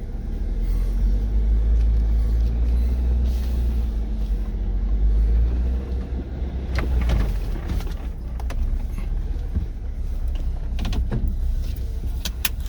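Jeep engine running at low revs on a steep rock climb, a deep steady rumble, with a few sharp knocks about halfway through and near the end.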